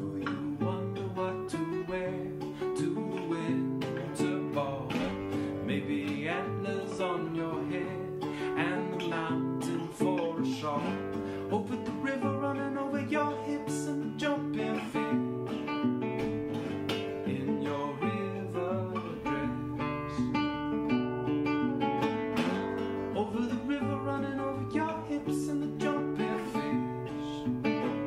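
Nylon-string classical guitar, fingerpicked and strummed in a steady rhythm, with a man singing over it.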